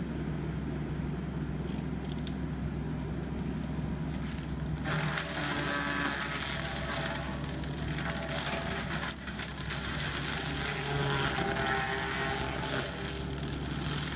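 Kubota compact track loader running steadily with an AFE SS Extreme forestry mulcher head spinning. About five seconds in, the mulcher bites into brush and small trees, adding dense crackling and splintering of wood over the engine drone.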